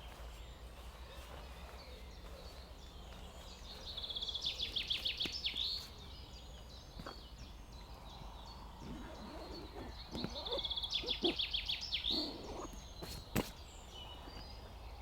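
A songbird sings a rapid, high trilled phrase about two seconds long, twice, about six seconds apart, over a faint steady outdoor background. Soft rustling comes between the songs, and there is a sharp click near the end.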